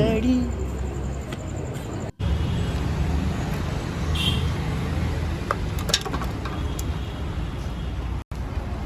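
Road traffic noise: a steady low rumble of vehicles, broken by two very short sudden drop-outs, about two seconds in and near the end.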